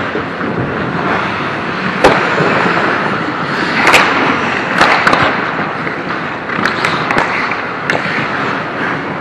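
Ice hockey play: a steady scraping hiss of skates on the ice with several sharp cracks and clacks of sticks and puck, the loudest about two seconds in and others around four, five, seven and eight seconds.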